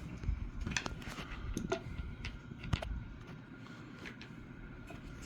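Handling noise from a rifle being taken apart on the bench: a scatter of small clicks and light knocks as the wooden stock and its small metal parts are handled and separated.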